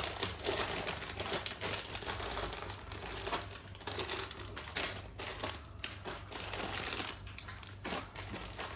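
Quick, irregular clicks and rustling of packaging being handled and unwrapped by hand, as a piece of jewellery is taken out.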